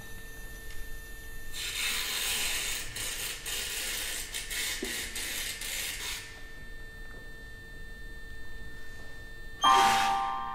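Contemporary ensemble music played on instruments and objects. Faint held high tones sound under a few seconds of dense rattling, scraping noise. Near the end comes a sudden loud attack whose ringing pitches die away.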